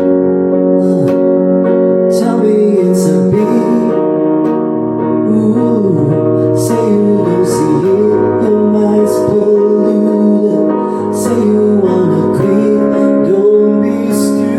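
Music: sustained piano or keyboard chords under a melody line that repeatedly slides down and back up in pitch, with no words heard.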